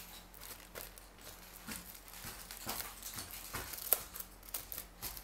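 Packaging crinkling and tearing as a small packet is picked open by hand, in irregular rustles with a sharp click about four seconds in.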